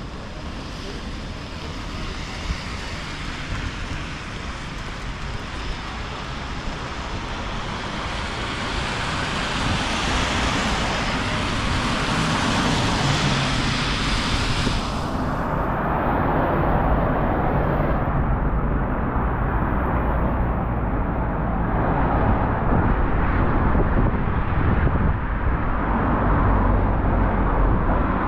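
Wet-street ambience in the rain: a steady wash of noise from rain, tyres on the wet road and wind buffeting the microphone, growing louder. About halfway through, the highest hiss cuts off suddenly while the lower rumble goes on.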